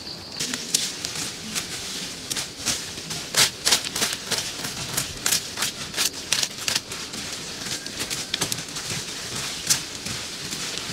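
Irregular crackling and clicking of dry fallen leaves and twigs being handled and cleared from the ground by hand.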